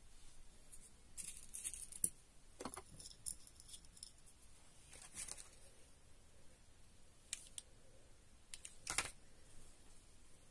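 Faint handling noise of small craft materials on a table: a scatter of short clicks and rustles spread over the seconds, with quiet gaps between them.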